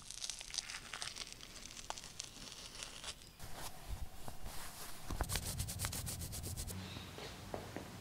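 A hand rubbing and scraping across a textured brick wall, giving a gritty scratching full of small ticks. Then an arm rubs against cloth, with a quick even run of ticks about five seconds in.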